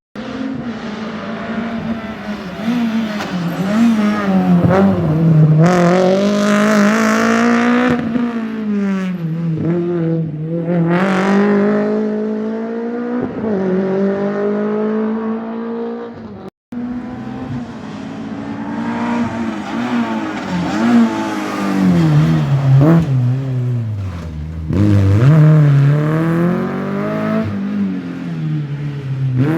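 Rally car engines at full attack, revving hard with the pitch climbing through the gears and dropping sharply under braking and downshifts, several times over. An abrupt cut about two-thirds of the way through switches to another car doing the same.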